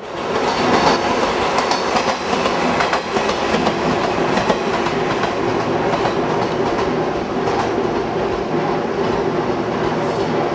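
Chichibu Railway 1000 series electric train running by, with loud running noise and wheel clickety-clack over the rail joints.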